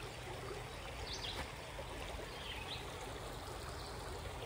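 Shallow rocky creek running over riffles: a steady rush of flowing water.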